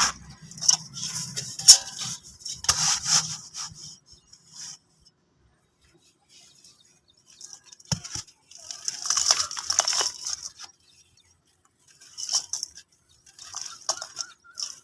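Dry, brittle material being crumbled: crisp crackling in quick clusters for the first few seconds, a pause of about three seconds, a dense run from about eight to ten seconds in, and more short bursts near the end.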